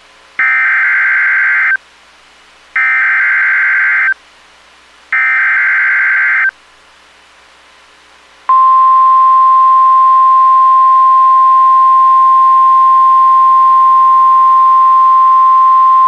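NOAA Weather Radio Emergency Alert System tones: three bursts of warbling digital SAME header data, each about a second and a half long, then about halfway through a steady 1050 Hz warning alarm tone. Together they announce a new alert, here a special marine warning.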